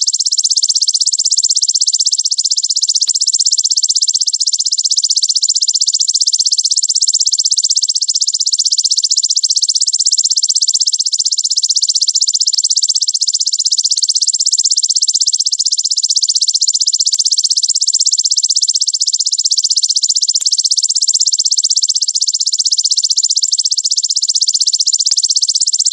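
Belalang raja (king grasshopper) calling in a fast, dense, unbroken high-pitched buzz made of very rapid pulses.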